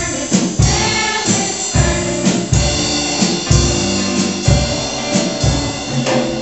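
Choir singing a song with a drum kit keeping a steady beat.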